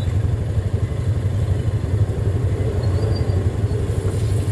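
Motor vehicle engines running in slow traffic, a steady low rumble.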